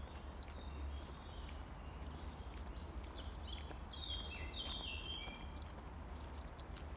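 Footsteps on a dirt forest path over a steady low rumble on the microphone. About three seconds in, a songbird sings a short phrase of clear whistled notes at several pitches.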